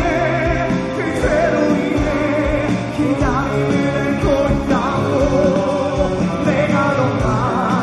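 Live rock band playing a song, with a singing voice over electric bass, guitars and drums.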